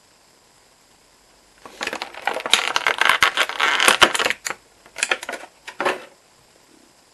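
Crinkly plastic toy packaging being handled and pulled open: a dense run of crackles and sharp clicks starting a couple of seconds in, then two short bursts near the end.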